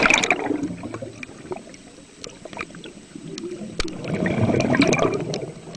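Water trickling and gurgling with scattered short clicks, swelling louder about four seconds in. The tail of background music dies away at the very start.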